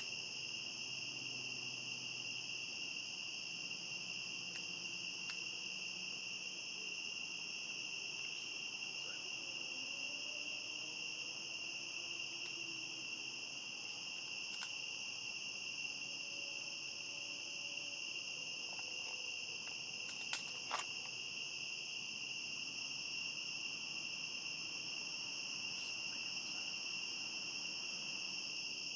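A steady night chorus of crickets chirping without pause. Two brief sharp clicks sound about half a second apart a little after two-thirds of the way through.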